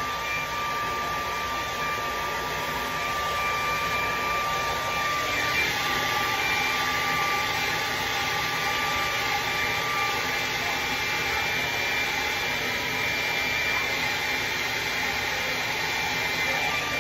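Handheld hair dryer running steadily on damp hair, an even blowing rush with a thin high motor whine.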